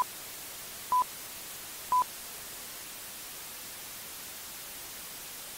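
Countdown sound effect: three short beeps at the same pitch, one second apart, over a steady hiss of TV static that runs on after the last beep.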